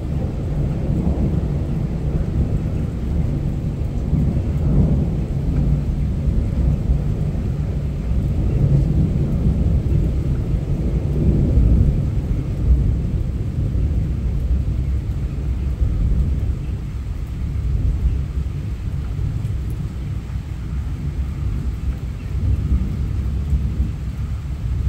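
A long rolling thunder rumble over steady rain, picked up by a phone's microphone: deep and loud, swelling through the middle, then slowly easing off near the end.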